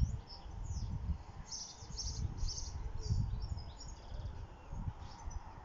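Small birds chirping and twittering, many short high calls throughout, over a low rumble.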